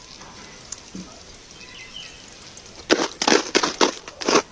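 Quiet outdoor background, then from about three seconds in a rapid, loud run of crunching, scraping strikes as a metal rod is raked through a pit of burnt-down charcoal embers.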